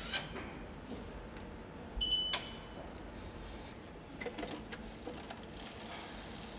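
Torque tool working on the engine's bolts: sharp clicks, with a short high beep about two seconds in and a few smaller clicks around four seconds in, over a low hum.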